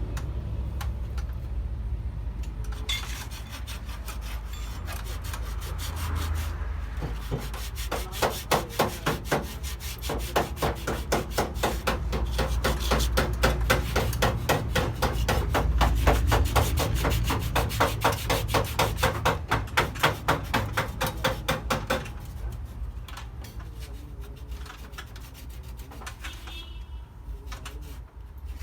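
Hand rubbing of an abrasive over the microwave's painted metal body, scrubbing the surface down, in fast even back-and-forth strokes at about four a second that grow stronger in the middle and ease off near the end.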